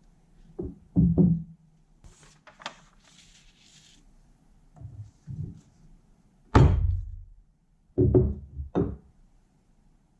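A series of hard knocks and thuds, several in quick pairs or triplets, the loudest about six and a half seconds in, with a brief scraping rustle between the first knocks.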